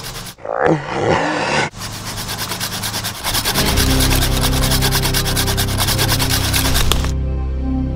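Hand pruning saw cutting into a tree branch: quick, even rasping strokes of the blade through bark and wood, stopping abruptly about seven seconds in. Background music with a low bass line comes in partway through.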